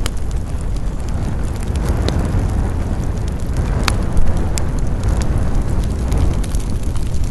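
Campfire crackling: scattered sharp pops and snaps from the burning wood over a steady low rumble.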